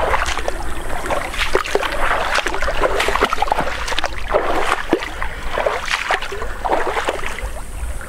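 Legs wading through a shallow river, water splashing irregularly, about one or two splashes a second.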